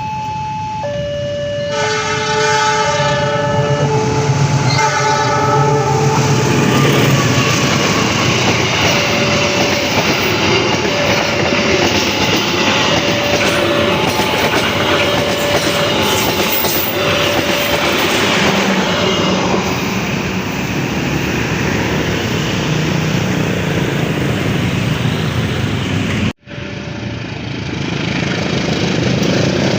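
Train horn sounding for about four seconds, a chord of several tones, over a level-crossing warning alarm that alternates between two tones. Then the train passes close by, with a loud rush and wheels clattering over the rail joints, while the alarm keeps sounding; the sound cuts off sharply near the end.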